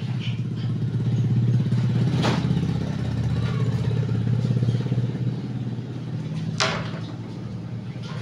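A small engine running steadily, growing louder about a second in and easing off after about five seconds, with two sharp clicks, one about two seconds in and one late.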